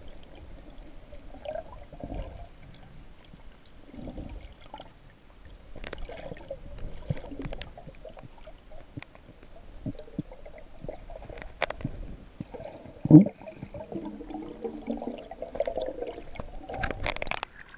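Water heard underwater: a muffled, uneven gurgling and bubbling with scattered small clicks as a freediver swims up. There is one loud low thud about two-thirds of the way through. Near the end, sharper splashing comes as he breaks the surface.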